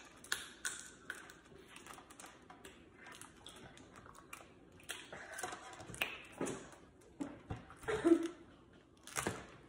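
Snow crab legs being cracked and picked apart by hand: scattered snaps and clicks of shell, with long false nails tapping against it.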